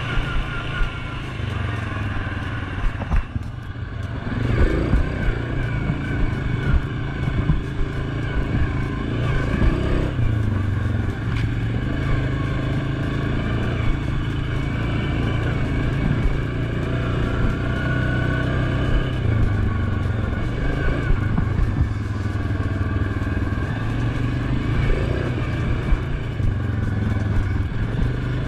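Suzuki KingQuad 750 ATV's single-cylinder four-stroke engine running while riding. The throttle eases off about three seconds in and then opens again with a rise in revs, and the engine speed goes on rising and falling with the trail.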